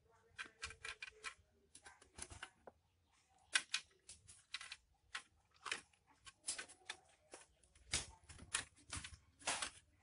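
Irregular light clicks and taps from a laptop being taken apart by hand, as its cable connectors and small plastic and metal parts around the motherboard are handled.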